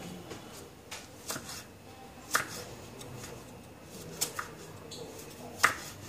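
Broad kitchen knife slicing red chillies on a round wooden chopping block: about six sharp knocks of the blade on the wood at uneven intervals, the loudest about two and a half and five and a half seconds in.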